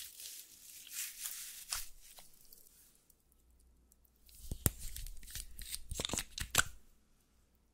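Sticky slime being stretched and squished by hand, with crackling, tearing sounds in the first two seconds. Later a few sharp clicks and handling noise as a liquid eyeliner pen is uncapped over the slime.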